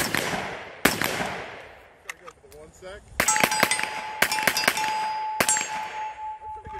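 Two rifle shots with long echoing tails, then after a short pause a quick string of about eight 9mm pistol shots from a 2011-style handgun. Steel targets clang when hit and ring on steadily after the first hit.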